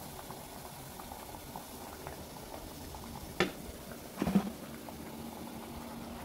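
Potato and rice-flour tikkis deep-frying in a kadhai of hot oil, the oil sizzling steadily with light crackles. Two sharp knocks come about three and a half seconds in and again a second later.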